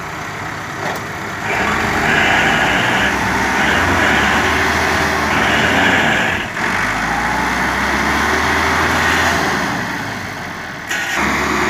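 Massey Ferguson 385 tractor's diesel engine and the loaded truck's engine working hard together, the tractor's front blade pushing the truck through deep mud. The engines rev up about a second and a half in, dip briefly in the middle, and ease off near the end before picking up again.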